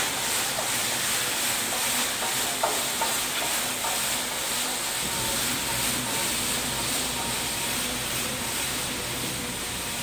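Rotary brush of a forklift-mounted sweeper attachment scrubbing a concrete floor: a steady hissing swish, with a faint machine whine under it. A low rumble joins about halfway through as the forklift draws closer.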